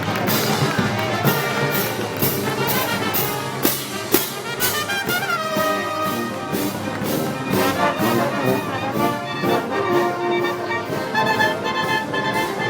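A Moros y Cristianos festival brass band playing, with trumpets and trombones carrying the tune over a steady percussion beat of about two strokes a second.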